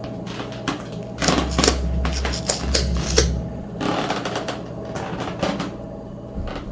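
Clattering clicks and rattles from a household object being worked, in quick irregular runs, with a low hum under the busiest stretch.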